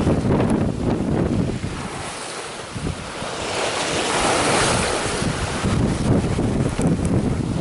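Wind buffeting the microphone and open-ocean waves rushing past a sailboat sailing fast into rough seas. A wave's hiss swells for a few seconds in the middle.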